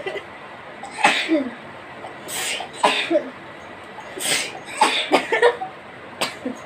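A person's repeated sharp, breathy coughs or sneeze-like bursts, about six of them, each short with a brief voiced tail.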